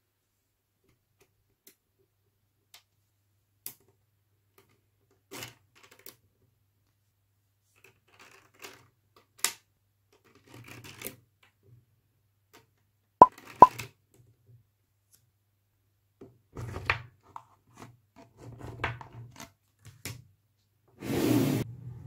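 Small magnetic balls clicking and snapping against each other as they are set in rows onto a block of magnetic balls, with scattered single clicks and two loud snaps about halfway through. A brief scraping rustle near the end.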